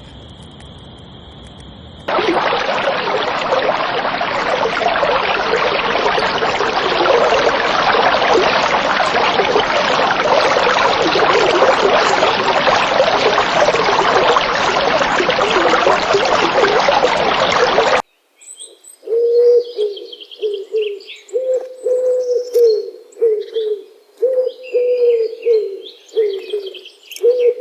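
A steady high buzz for about two seconds, then a loud, dense chorus of many calls at once that cuts off suddenly. After that come pigeons or doves cooing in repeated short low notes, with small birds chirping above them.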